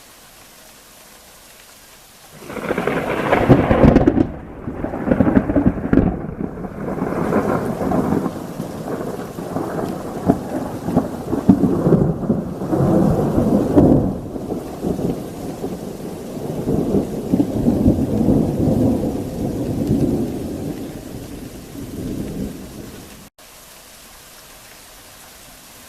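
Long rolling thunder over steady rain: the thunder starts about two seconds in, rumbles on in repeated peals for some twenty seconds, and cuts off suddenly near the end, leaving the hiss of rain.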